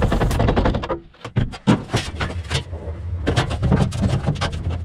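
Sheet metal clattering and knocking irregularly, over a low steady hum.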